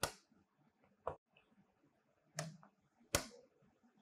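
Four short, sharp taps of a pen on an interactive smart-board screen, unevenly spaced.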